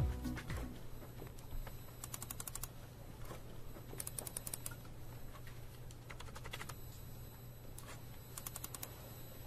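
Typing on a laptop keyboard: short bursts of rapid key clicks with pauses between them, over a low steady hum.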